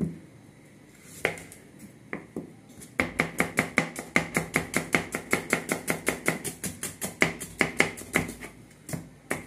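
Kitchen knife slicing onions on a cutting board: a few separate cuts at first, then from about three seconds in a fast, even run of chopping taps, about five or six a second, with a brief pause near the end.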